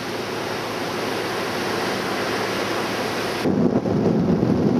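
Steady hiss of wind and sea. About three and a half seconds in it changes to a louder, lower rumble of wind buffeting the microphone.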